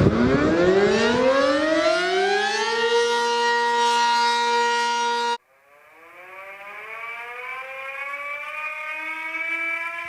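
Two civil defense siren sounds back to back. The first starts suddenly, winds up in pitch over about three seconds, holds a steady tone and then cuts off abruptly about five seconds in. The second winds up slowly, growing higher and louder to the end.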